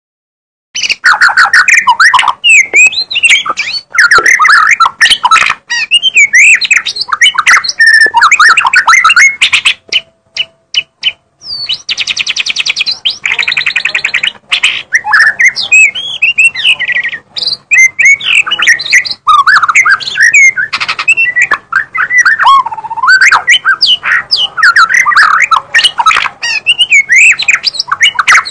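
White-rumped shama (murai batu) in full, vigorous song, loud and continuous, with rapidly changing whistled phrases. About a third of the way through it breaks off for a moment with a few sharp clicks, then gives a fast buzzing trill before going back to whistling.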